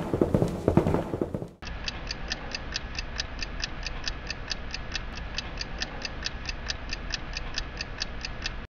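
Shoes clicking on a hard polished floor for the first second and a half. Then a sudden switch to a clock ticking fast and evenly, about five ticks a second, which cuts off abruptly near the end.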